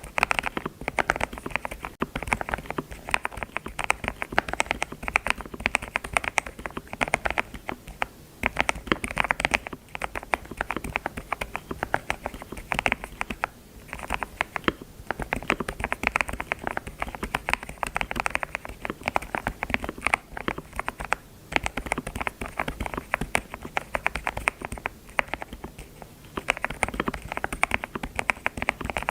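Computer keyboard being typed on, a rapid run of key clicks with a few short pauses.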